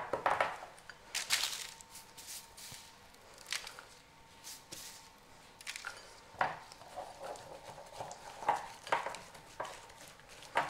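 Spatula scraping and stirring toasted oats and nuts into a honey mixture in a glass bowl: irregular short scrapes and light taps, with baking paper rustling as the mixture is pushed off it.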